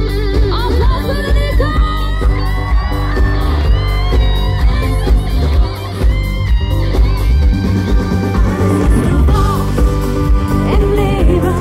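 Live schlager band playing a song with electric guitar and a steady drum beat, a singing voice over it.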